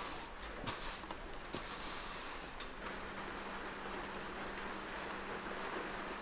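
Push broom with coarse bristles sweeping dust and grit across a concrete floor: a steady scratchy hiss with a few small ticks in the first few seconds.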